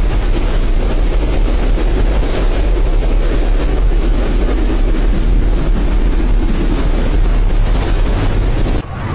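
Strong storm wind and heavy rain blowing steadily, with a deep rumble of wind buffeting the phone's microphone; it cuts off abruptly near the end.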